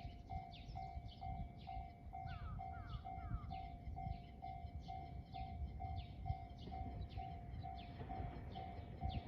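Japanese railway level crossing alarm ringing its steady, evenly repeating ding, a little under three dings a second, as the crossing warns of an approaching train. A low rumble runs underneath, and a few short bird chirps come about two to three seconds in.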